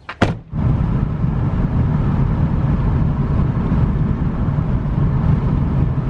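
A van door knocks shut twice at the start, then the steady loud rumble of the van driving at road speed, heard from inside the cabin.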